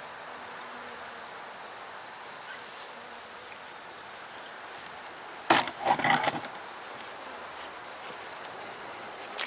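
Steady high-pitched chorus of insects. About halfway through there is a sharp knock, followed by a brief clatter.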